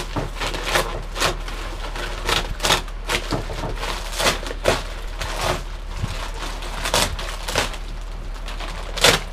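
Plastic packaging sheeting being handled and pulled off a kayak, crinkling and crackling in short, irregular bursts.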